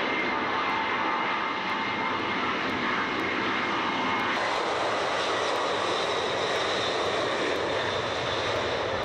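Lockheed L-1011 TriStar's Rolls-Royce RB211 jet engines running at high power as the airliner rolls for takeoff: a steady rush of jet noise with a thin whine over it. About four seconds in the whine drops away and the rush becomes broader and heavier.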